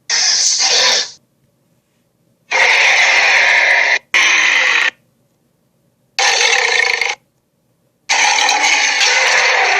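A string of dragon roar and screech sound effects: five harsh, noisy cries of about one to one and a half seconds each, every one starting and cutting off abruptly, with dead silence between them. The last one runs on past the end.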